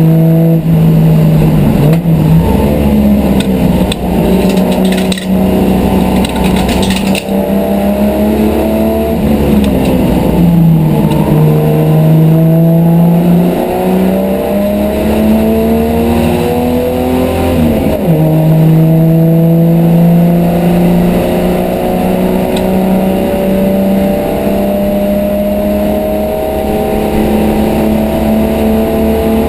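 Race car's engine heard from inside the cockpit under hard acceleration. The revs climb and drop sharply at gear changes a few times, then rise in one long, steady climb along a straight.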